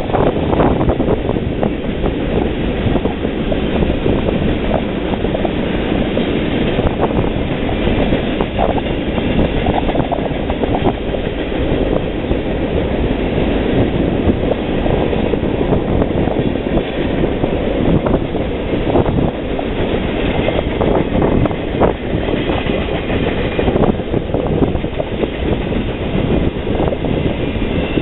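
Freight train's cars rolling past: a steady rumble of steel wheels on rail, with frequent clicks as the wheels cross rail joints.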